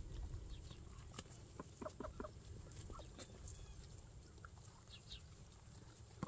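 Chickens clucking faintly, a scatter of short, soft clucks.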